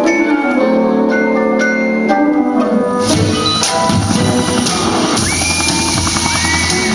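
Music: an intro of held melodic notes, then about three seconds in a drum beat and deep bass come in, with a high line sliding up and down over the beat.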